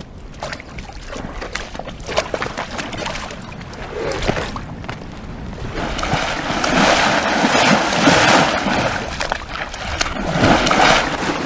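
Water splashing and sloshing as horses move through a shallow, muddy waterhole. Sparse splashes come first, growing denser and louder about halfway through.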